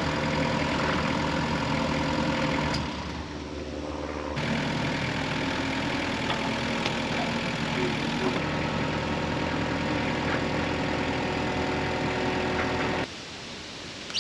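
An engine running at a steady idle, dipping briefly about three seconds in, then shutting off near the end.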